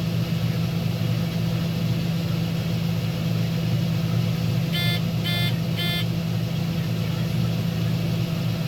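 Combine harvester running steadily with a constant low drone. A little past halfway, three short electronic beeps sound about half a second apart.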